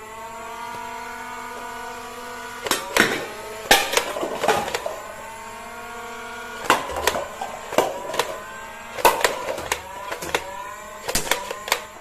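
Small electric motor of a toy gun whirring at a steady pitch after spinning up, with sharp snapping shots or clicks in uneven bursts; the whine sags slightly while it fires.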